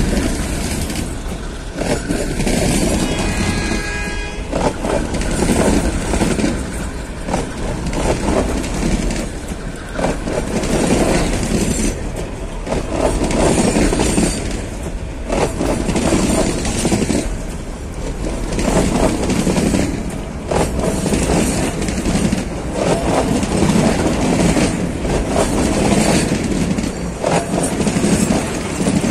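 Freight train wagons rolling past with a steady clatter of wheels on rail, the sound swelling and dipping every two to three seconds as each car goes by. A brief high, pitched tone sounds about three seconds in.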